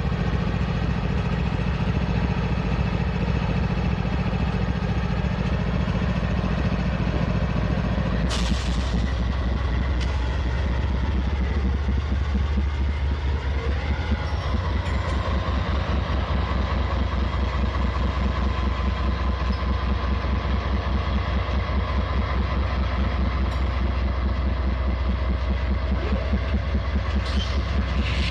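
Norfolk Southern diesel-electric locomotive's engine running under load as the train starts moving slowly, a steady low drone. About eight seconds in, a brief sharp sound comes and the engine note shifts deeper into a regular throb as it works harder, with a few short sharp sounds near the end.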